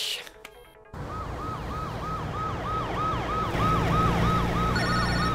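Emergency-vehicle siren in a fast yelp, its pitch sweeping up and down about three times a second, starting about a second in. A low steady hum rises under it partway through.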